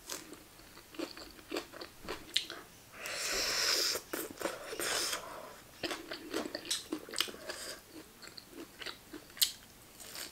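Close-miked chewing of crunchy food, with wet mouth clicks and many small crunches and a louder stretch of crunching about three seconds in.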